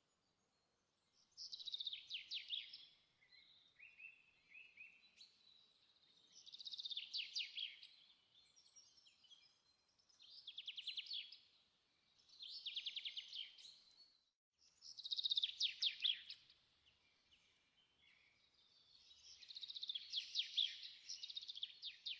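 Birdsong: a small bird singing about six trilled phrases of rapid repeated notes, each a second or two long, with short pauses between.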